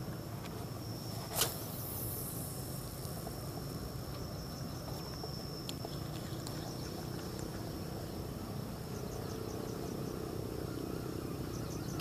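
Spinning reel being cranked to retrieve a lure: a faint whirr over a steady low rumble and a thin steady high tone, with one sharp click about a second and a half in.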